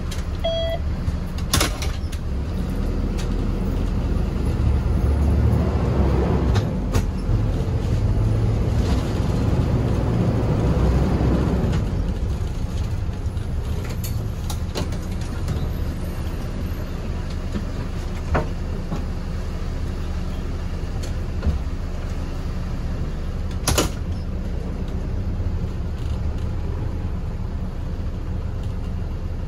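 Hong Kong public light bus (minibus) engine and road noise heard from inside the cabin, a steady low rumble that swells for several seconds from about four seconds in as the bus pulls harder, then settles. A few sharp knocks or rattles come through, the loudest near the end.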